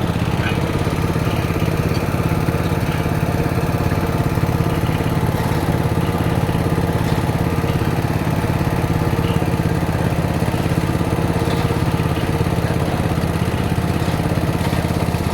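Engine of a borehole well-drilling rig running steadily at a constant speed.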